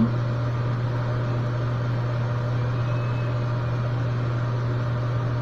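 Steady low hum under even background hiss, unchanging throughout, with a faint brief tone about three seconds in.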